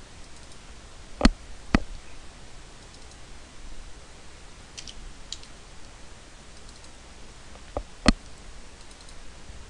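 Sharp computer mouse clicks: two about a second in, half a second apart, two faint ones around the middle, and two more near the end, over a low hum of room noise.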